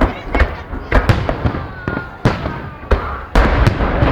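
Fireworks salute: a rapid, irregular series of sharp bangs from bursting shells, about ten in four seconds, some with a rumbling tail, and faint whistles near the middle.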